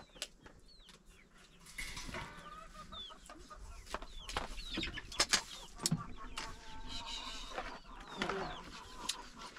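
Chickens clucking with short, repeated calls. Several sharp clicks, the loudest about halfway through, come from nail clippers trimming fingernails.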